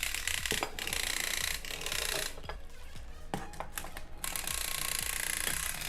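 Clockwork spring motor of an Arnold Mac 700 tin windup toy motorcycle running, a steady mechanical whirr with clicks as the wound toy drives itself, dropping out briefly twice near the middle.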